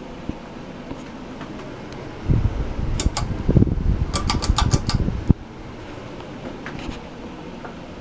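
Home Decorators Collection Windward 52-inch ceiling fan running with a steady whir. About two seconds in, a loud low rumble comes in and lasts about three seconds, over which the pull chain is tugged: a sharp click, then a quick run of clicks from the chain and speed switch.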